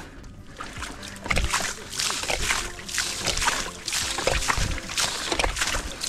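Repeated, irregular splashing and sloshing of shallow muddy water, starting about a second in, as hands churn and scoop the water of a half-drained tidal pool while feeling for fish.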